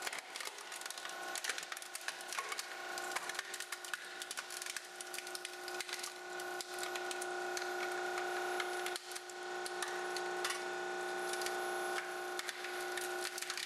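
A hydraulic press crushing a BMW car radio: the sheet-metal casing and internal mechanism crackle and snap continuously as they buckle and break. A steady whine from the press's hydraulic unit runs underneath.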